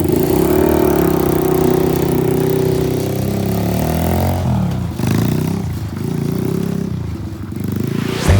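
Motorcycle engine running on a bike fitted with a ski and track for snow. The revs are held for about four seconds, drop, then rise and fall again before climbing near the end.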